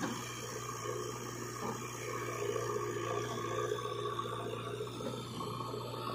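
Diesel engines of a JCB 3DX backhoe loader and a Sonalika DI 740 tractor running steadily, with a constant low hum.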